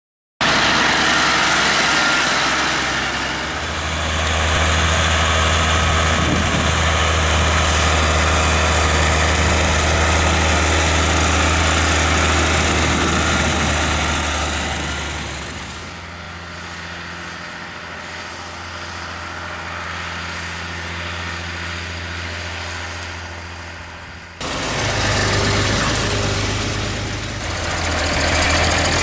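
Steyr 8100 tractor's turbocharged diesel engine running steadily, pulling a mounted plough. It goes quieter for a stretch in the middle and comes back loud suddenly near the end.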